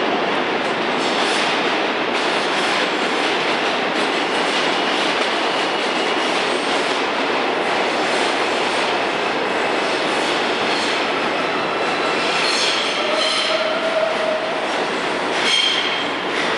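R160A subway train running into the station along the platform, a loud steady rumble of steel wheels on rail. In the last few seconds it squeals as it slows to a stop, with a brief sharp sound near the end.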